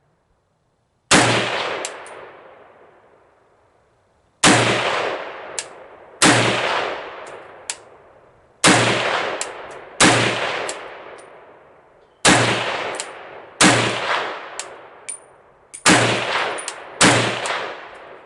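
Riley Defense AK-47 rifle firing 7.62x39mm rounds in slow semi-automatic fire, nine single shots spaced one to three seconds apart. Each crack rings out and dies away over a second or two, with a few short sharp clicks between shots.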